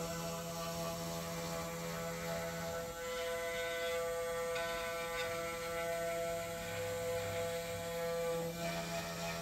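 Vevor 3018 desktop CNC router milling a wood board: the spindle motor whines steadily as the end mill cuts, with the stepper-driven axes moving the bit across the pocket. The pitch of the whine shifts about three seconds in and again near the end, as the feed moves change.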